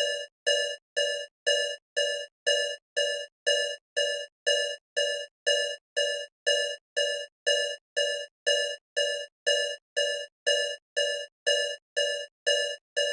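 Electronic alarm beeping, about two short beeps a second in an unchanging repeating pattern. Each beep is a single buzzy tone that fades slightly before the next.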